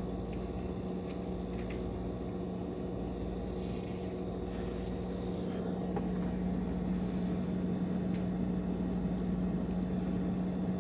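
Built-in refrigerator's compressor running with a steady hum, drawing fewer amps than it should. The low draw goes with an undercharged system from an R134a refrigerant leak.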